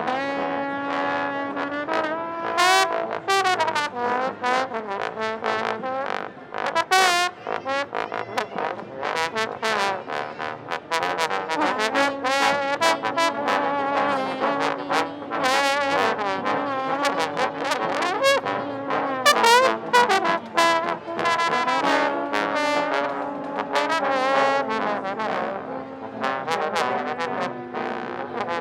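B.A.C. trombone played in busy runs of quick notes with glides and wavering pitch between them, over a steady lower note held for several seconds at a time.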